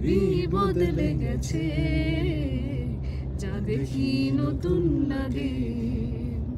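A man and women singing a song together inside a moving car's cabin, with the car's steady engine and road rumble underneath.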